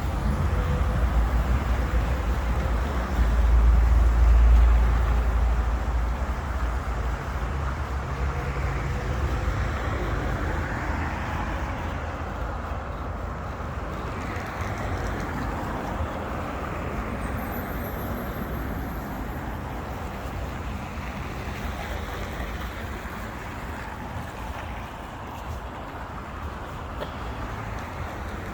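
Road traffic with vehicles passing. A heavy low engine rumble from a close vehicle is loudest about four seconds in, then the noise of passing cars slowly dies down.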